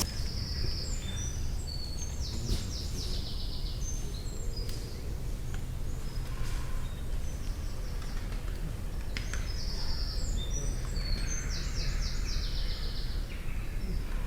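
A songbird singing in woodland: two similar phrases of high short notes running into quick trills, several seconds apart, over a steady low rumble.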